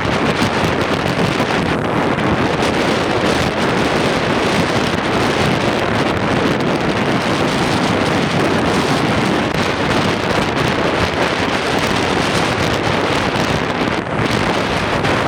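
Strong wind rushing across the microphone, a loud steady roar with a brief lull near the end.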